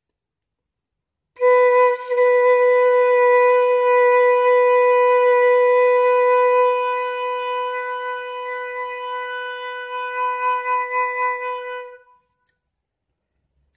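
Flute holding one long B (the German H, the B above middle C) as a long-tone exercise, starting about a second and a half in and lasting about ten seconds at a steady pitch. The tone grows a little weaker and wavers over its last few seconds before it stops.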